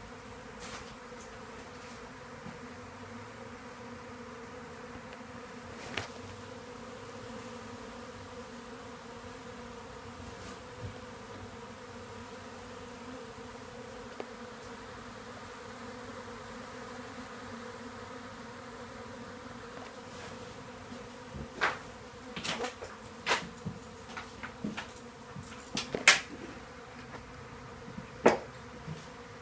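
A swarm of bees buzzing, a steady dense hum of many bees in flight. In the last several seconds there is a run of sharp taps and knocks, and the loudest of them are louder than the hum.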